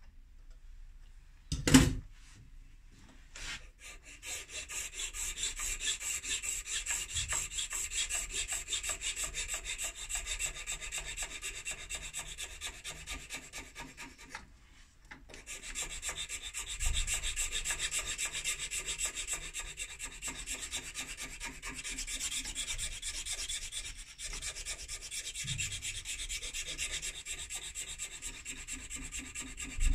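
A flat hand file rasping steadily along a stem clamped in a lathe chuck. A sharp knock comes about two seconds in, before the filing starts, and the filing stops briefly around the middle.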